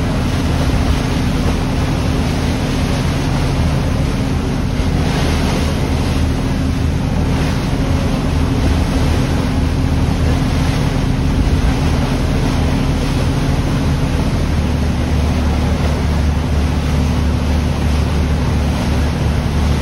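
Orange-flag Chao Phraya Express river boat under way: its engine drones steadily beneath the rush of water and wind. About fifteen seconds in, the engine note shifts slightly.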